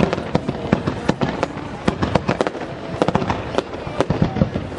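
Aerial fireworks shells bursting in rapid succession, a dense run of sharp bangs and crackles several times a second.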